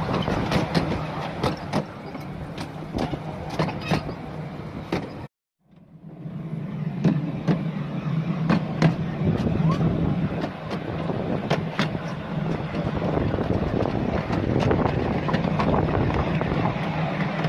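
Miniature railway train on the move: a small engine running steadily with irregular clicks and knocks from the running gear on the track. The sound cuts out for a moment about five seconds in.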